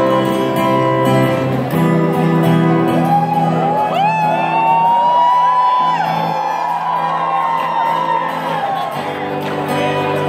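Amplified acoustic guitar strumming chords live on stage, with audience members screaming and whooping over it from about three seconds in until about eight and a half seconds.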